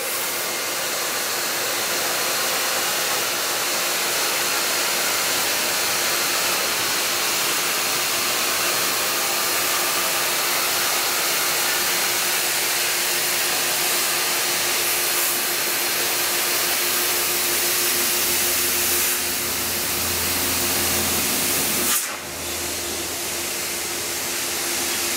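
Two-stage MetroVac electric blower running steadily, air rushing through its hose into the valve of an inflatable culvert plug, with a steady hum under the hiss. About 22 seconds in, the rushing air drops abruptly.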